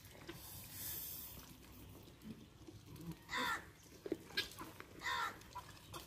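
Farmyard birds calling: two loud, short, harsh calls about halfway through and near the end, with a fainter call between them.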